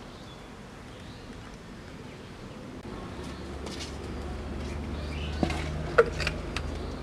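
Hand-cutting small round wild mushrooms against an iron bonti blade, with a few light sharp clicks near the end, one ringing briefly. Faint birds chirp and a low hum rises behind it.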